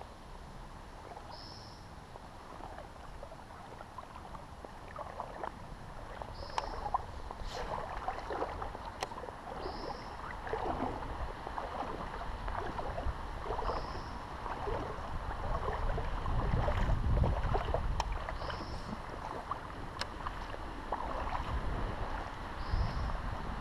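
Water sloshing, splashing and dripping around a small paddle craft as it moves slowly through shallow water, with many small irregular splashes. A bird repeats a short high call every few seconds, and a low rumble builds in the second half.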